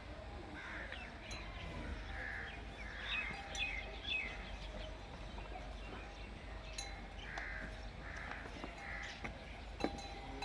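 Birds calling: repeated short caw-like calls with quick chirps in between, and one sharp click near the end.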